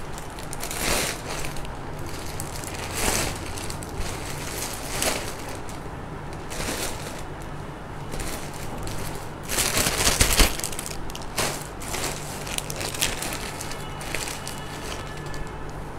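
Rustling and crinkling of plastic-packed garments being rummaged through and handled, coming and going irregularly, loudest about ten seconds in.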